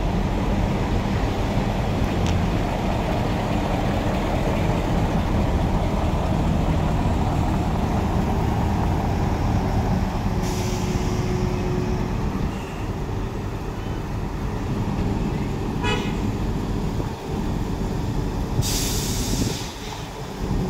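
Heavy diesel engines of a mobile crane and a Mitsubishi Fuso tractor unit running steadily while the crane holds a shipping container over the flatbed trailer. Two bursts of air hiss come about ten and nineteen seconds in, with a short rattle near sixteen seconds.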